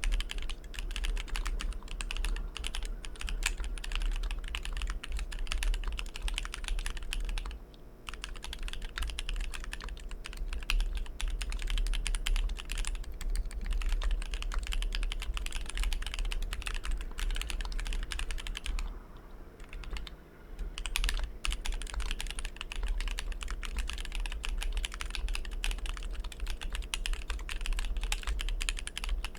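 Steady fast typing on a custom mechanical keyboard with a brass plate, SP-Star Polaris White switches and GMK Oblivion keycaps: a dense run of keystroke clacks, broken by short pauses about eight seconds in and again around twenty seconds in.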